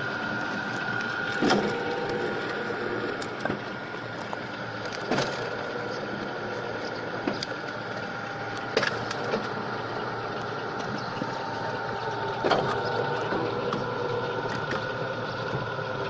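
Belt-driven wood chipper running with a steady whine, with a sharp crack about every three and a half seconds as pieces of wood are fed in and chipped.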